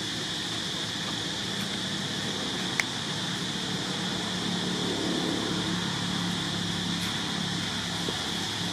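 Steady outdoor background noise with a constant high-pitched hiss and a faint low hum, broken by a single sharp click about three seconds in.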